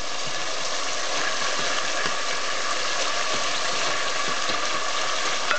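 Pork and ginger frying in oil in a pot, a steady sizzle, with a few faint clicks of a spoon stirring.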